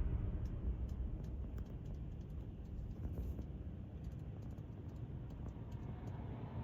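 Steady low rumble of a vehicle, with faint irregular clicks and ticks scattered over it.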